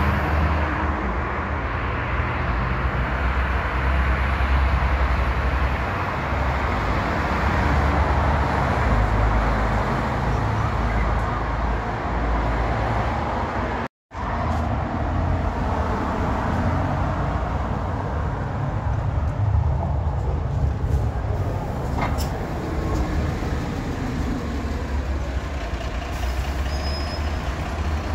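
City buses and cars passing in street traffic, diesel engines running with a strong deep rumble and tyre noise, broken by a brief dropout about halfway through.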